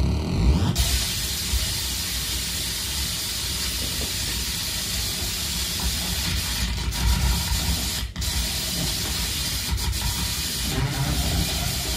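Harsh-noise feedback from a saxophone feedbacker rig: a steady, loud wall of hiss-like noise, cutting out for an instant about eight seconds in, with pitched tones creeping back in near the end.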